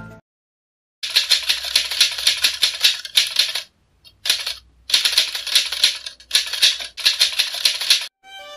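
Typewriter-style typing sound effect: fast, dense key clatter in several runs with short breaks, stopping about eight seconds in, where soft music starts.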